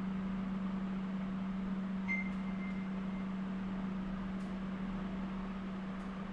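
Steady low hum over an even hiss, like a machine or fan running in a small room. A short, faint high tone sounds about two seconds in, and a few faint ticks come later.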